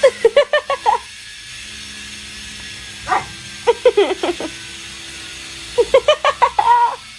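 A dog barking in quick runs of short, high barks, three bouts of them, over a steady low background hum.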